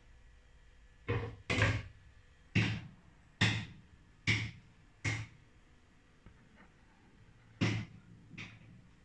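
A series of about eight sharp knocks, spaced less than a second apart, with a short pause near the end before the last two.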